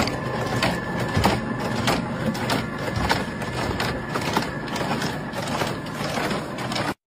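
Clay brick extrusion and cutting machinery running, a steady mechanical rattle broken by frequent irregular clacks, with a faint high whine through the first half.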